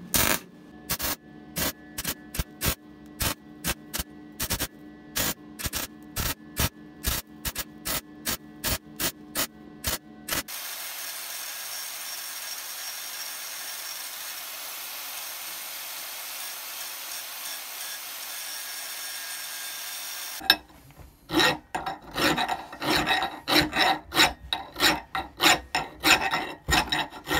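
A MIG welder laying short blasts of weld on a broken stepped drill press pulley, building up the snapped section, with sharp cracks about three a second. Then an angle grinder rough-shaping the weld with a steady hiss for about ten seconds. Then a hand file rasping over the pulley in quick, uneven strokes, about two a second.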